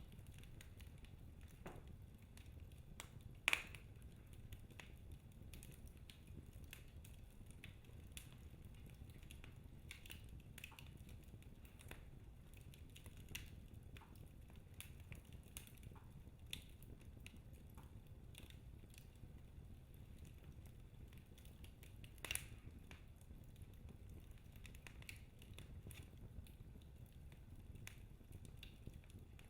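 Wood fire in a fireplace crackling quietly, with scattered small pops and two louder snaps, one a few seconds in and one about two-thirds of the way through.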